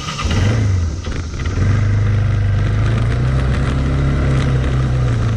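ATV engine running loud and steady, coming in just after the start, over a high, steady cicada chorus.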